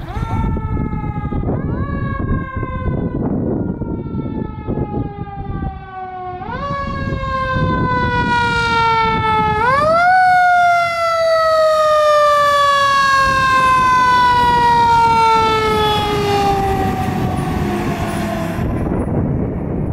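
2011 Sutphen Shield fire engine passing with its siren sounding: four quick rising whoops, each followed by a slow falling wind-down, the last long fall ending shortly before the end, over the truck's engine and tyre noise.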